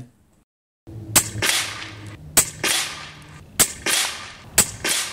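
Steyr LG110 PCP air rifle firing four shots about a second apart, each a sharp report that trails off quickly; the first comes about a second in.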